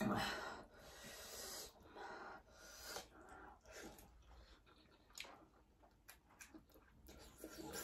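Spicy Korean fire noodles being slurped and chewed, with breathy noises about once a second for the first few seconds, then a run of light clicks.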